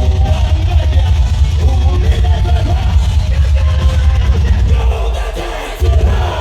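Loud live rock music through a concert PA: heavy bass and drums with sung and yelled vocals over crowd noise. The heavy bass drops out for a moment about five and a half seconds in, then comes back in.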